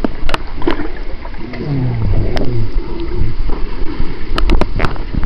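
Muffled underwater sound of pool water churned by a swimmer, picked up by a waterproof camera's microphone: a dense, dull rumble with scattered sharp clicks and a few wavering, falling tones about two seconds in.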